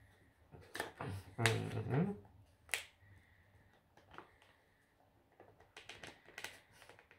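A sheet of plain paper crinkling and crackling between fingertips as someone strains to tear it. Sharp paper snaps come in a cluster over the first three seconds and again near the end, with a short voiced sound rising in pitch about a second and a half in.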